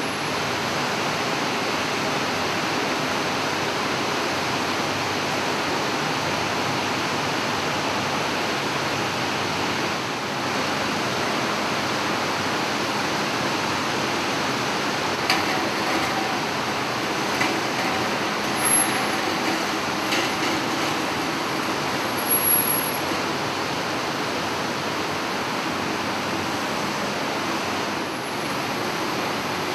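Steady machinery noise of a tomato-processing line, with conveyors and motors running. A few short metallic clinks come in about halfway through.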